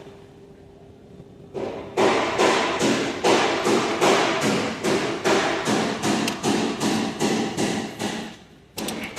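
Hammer blows on metal, about three a second with a ringing tone after each, starting about two seconds in and pausing briefly near the end.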